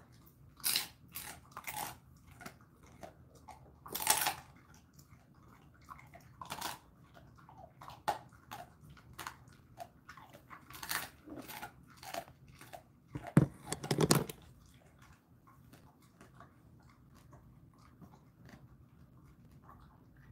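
A Jindo dog crunching and chewing a dried chicken foot: irregular sharp cracks, loudest about four seconds in and again around thirteen to fourteen seconds in. The chewing stops about fifteen seconds in.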